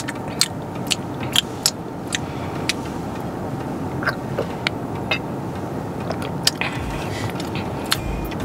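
Drinking from and handling a glass bottle close to a clip-on microphone: a dozen or so sharp, irregular clicks and gulps over a steady low rumble inside a car.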